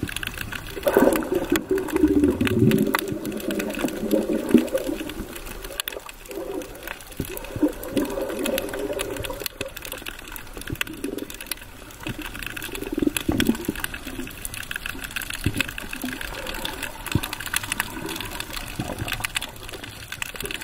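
Underwater sound on a rocky reef, picked up by a submerged camera: a constant crackle of small clicks, with swells of muffled rushing, gurgling water every few seconds, the biggest in the first few seconds.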